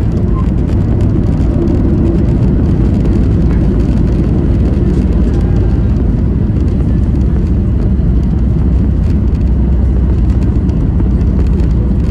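Steady low rumble of a Boeing 737-800's engines and airflow, heard inside the passenger cabin.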